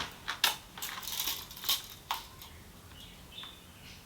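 A few sharp clicks and rustles of handling during the first two seconds, as fabric and a measuring tape are worked on a surface, then only faint small sounds.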